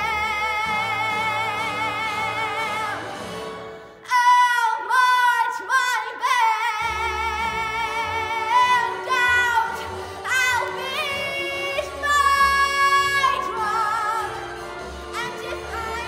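A Broadway show tune sung by a woman, holding long notes with strong vibrato over band accompaniment. The low accompaniment drops out for about three seconds around four seconds in, leaving the voice nearly alone, then comes back.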